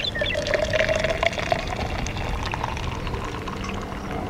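Hot water poured in a steady stream from a stainless steel pot into a glass French press beaker, the note of the filling rising as the beaker fills, to preheat the press before brewing.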